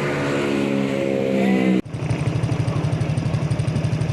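Bus engine revving, its pitch rising slowly, then cutting off abruptly a little under two seconds in. It is replaced by a lower engine note with a rapid, even pulse.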